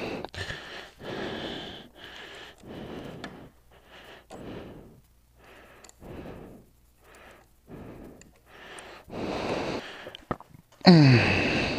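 A person breathing close to the microphone, a short rush of breath about once a second while working with his hands, with a few faint clicks. A voice starts briefly near the end.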